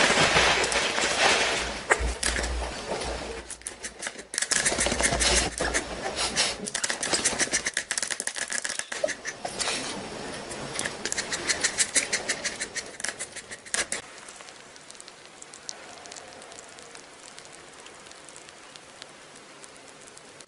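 A small dog's claws clicking and scrabbling rapidly on a glass tabletop as it paws at food, loud for most of the time and then fading to faint scratching about two thirds of the way through.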